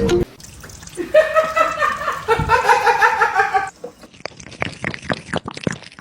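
A person laughing in quick rhythmic bursts for a couple of seconds, then a run of quick wet clicks as a cat laps water.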